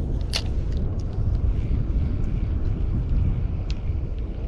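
An ultralight spinning rod being cast: a single sharp swish about a third of a second in, then a few faint ticks. A steady low rumble runs underneath and is the loudest sound.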